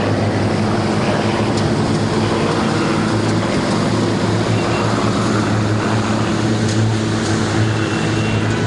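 Propeller-driven aerobatic aircraft flying in formation, their piston engines giving a steady, continuous drone.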